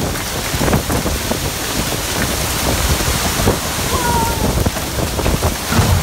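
Tornado-force wind driving heavy rain against a house and yard: a loud, dense, steady rush of rain and wind, with irregular gusts buffeting the microphone.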